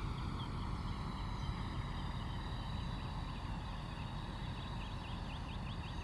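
Tropical wetland dawn chorus: a steady high buzz with many quick, short chirps from small animals scattered throughout, busier in the second half, over a low steady rumble.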